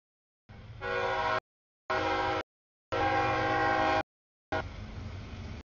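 Freight locomotive air horn blowing three blasts for a grade crossing, the last about a second long and the loudest, with the sound cutting out completely between blasts. The noise of the train running through the crossing follows.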